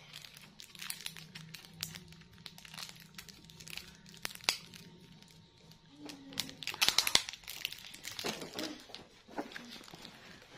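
Plastic bubble-gum packet crinkling in a child's hands as she opens it, many small crackles with a louder burst of crinkling about seven seconds in.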